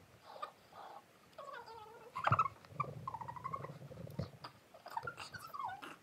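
Girls' stifled giggling and squeaky, wordless vocal noises while drinking sparkling water, with a sharp knock about two seconds in.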